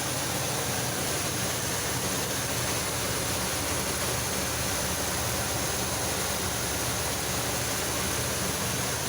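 1985 Chevy C10 pickup's engine idling steadily on a newly fitted replacement Rochester-type carburetor, running without any change in speed.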